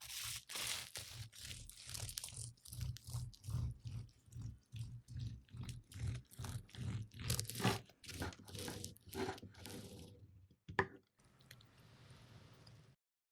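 Crisp puff-pastry crust of a beef Wellington crunching and crackling in quick irregular strokes for about ten seconds, then a single sharp click.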